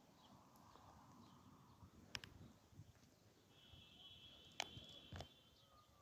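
Near silence: faint background hiss with a few soft clicks, and a brief thin high tone lasting about a second and a half in the second half.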